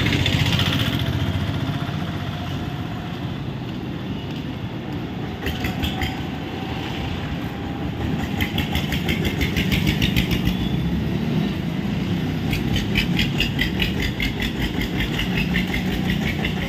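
A motor vehicle's engine running close by with a steady pulsing rumble. A rapid ticking rattle comes and goes a few times over it.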